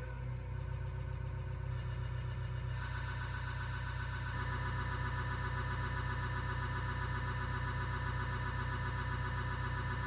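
A CD skipping on a Sony LBT-ZX66i stereo: a tiny fragment of the music repeats many times a second as a rapid, buzzing "vovovovo" stutter. About three seconds in, its tone turns brighter.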